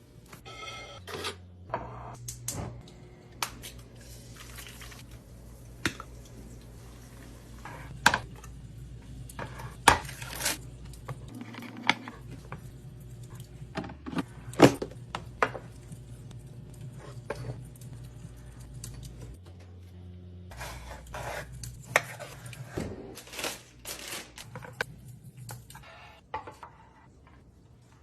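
Food containers and packages being set down and moved around while restocking a fridge: a string of irregular clicks, knocks and clinks, a few sharp ones, over a steady low hum.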